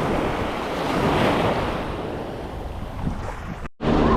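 Ocean surf washing up the beach with wind buffeting the microphone, the wash swelling about a second in. The sound cuts off suddenly near the end.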